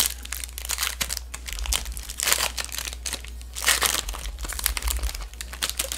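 Pokémon booster pack's foil wrapper crinkling as it is torn open by hand and the cards are slid out, in irregular crackles with louder rustles a little past two seconds and near four seconds.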